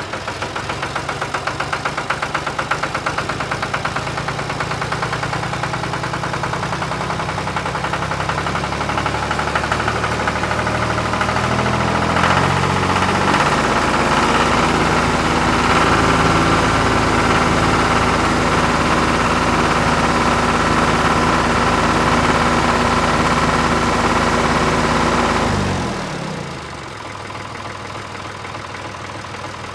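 Engine of potato-harvesting farm machinery running steadily. It picks up in pitch and loudness about twelve seconds in, then falls away sharply a few seconds before the end to a quieter running sound.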